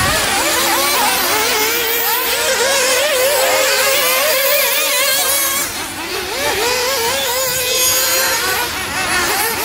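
Several nitro RC off-road cars' small glow-fuel engines running at high revs together. Their pitches rise and fall as the throttles open and close around the track.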